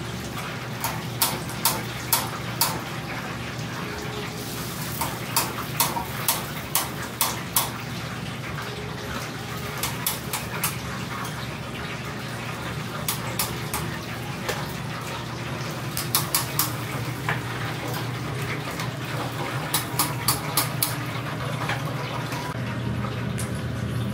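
Oil sizzling steadily in a deep fryer as pieces of karaage fried chicken cook, with a low steady hum underneath. Clusters of sharp metallic clicks come every few seconds as a metal utensil taps against the fryer and the wire rack tray.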